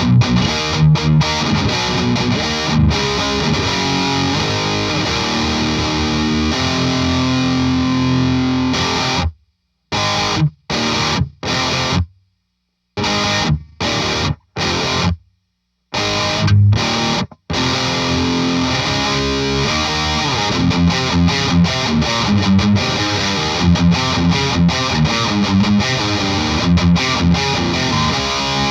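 Electric guitar played through a Dagon OD overdrive pedal, a Klon-style overdrive, into a Marshall JCM900 amplifier, giving a distorted rock riff. About nine seconds in, the riff turns into short stabbed chords with dead silence between them for several seconds, then picks back up with steady chugging.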